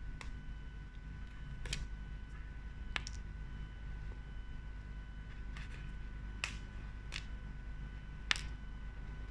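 A cardboard phone box being handled: about seven short, irregular clicks and taps of fingers and fingernails on the box, the sharpest near the end, over a steady low hum.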